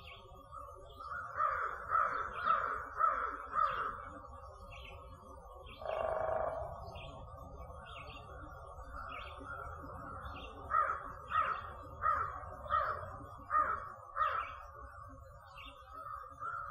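Crows cawing in two runs of harsh caws, about two a second: five in the first few seconds and six more after the middle. A single longer, lower call comes about six seconds in. A small bird's faint high chirp repeats throughout over a steady low rumble.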